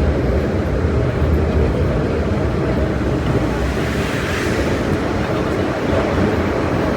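Steady running noise inside a Metro-Cammell electric multiple unit metro train on the move, a continuous rumble of wheels on track and running gear.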